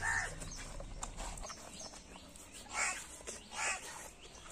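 Short bird calls, three of them a second or so apart, over a quiet outdoor background.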